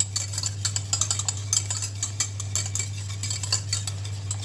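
A utensil stirring a simmering cream-and-mustard sauce in a pan, with rapid, irregular light clinks and scrapes against the pan, over a steady low hum.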